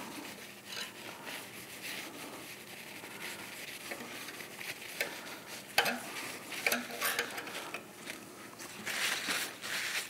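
Alcohol-soaked cloth rubbing back and forth over a stainless steel plate lying on a steel welding table, wiping off polishing-compound residue, with a few light taps.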